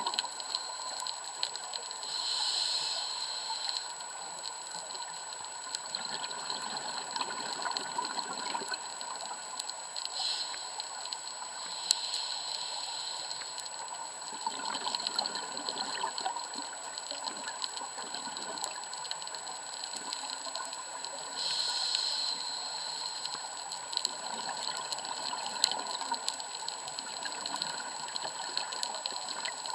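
Scuba regulator exhaust bubbles heard underwater through an action-camera housing: several bursts of exhaled bubbles rush out over a steady hiss, with scattered sharp clicks in between.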